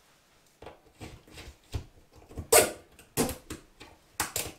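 Toggler hollow-wall anchors being set by hand into holes in half-inch drywall: a string of short, irregular plastic clicks and snaps, the loudest about two and a half seconds in.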